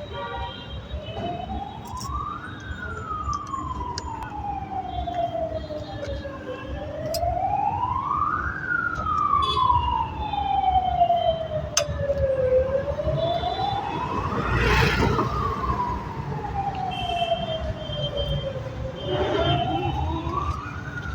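A siren wailing, its tone rising and falling slowly about once every six seconds, over a low background rumble with scattered clicks.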